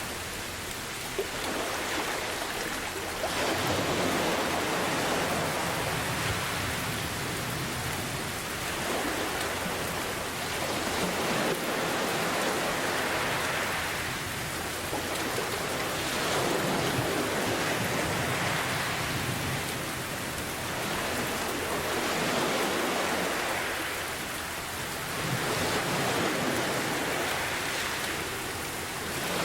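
Steady heavy rain mixed with ocean waves that surge and fall back every few seconds, with a low rumble underneath.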